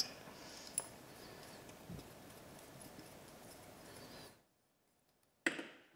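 Faint handling sounds of a small brass adjustable rigging fitting being turned in the fingers, with a few light clicks. Near the end the sound drops to dead silence for about a second, then a brief louder rustle.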